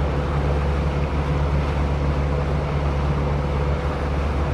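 Boat motor running steadily: a constant low drone with a faint steady hum above it.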